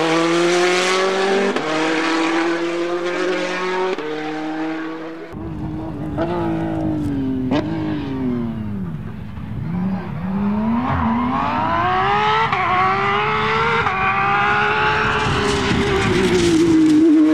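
Rally car engines at racing revs: first one held high with quick jumps in pitch at gear changes, then another that drops its revs with a couple of sharp cracks as it slows for a corner and accelerates hard again, pitch climbing through a gearshift and growing louder as it nears.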